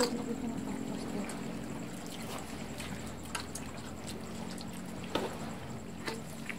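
A steady low hum with a faint high whine, broken by scattered small clicks and taps.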